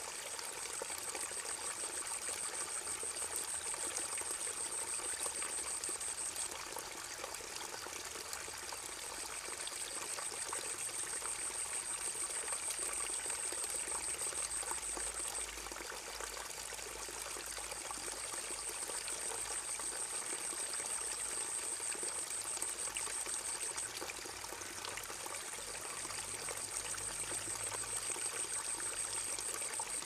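Steady rushing noise like running water, with a high, thin tone that swells and cuts off every six to eight seconds.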